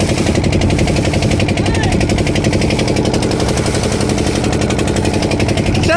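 Fishing boat's engine running steadily with a rapid, even pulsing beat.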